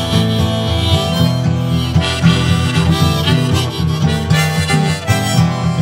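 Instrumental break of a folk-blues song: a harmonica plays a melody of held and bent notes over a steadily strummed acoustic guitar.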